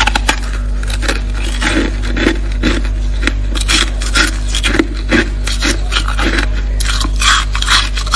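Thick, snowy freezer frost being scraped, a run of crunchy, rasping strokes at about two a second, with a steady low hum underneath.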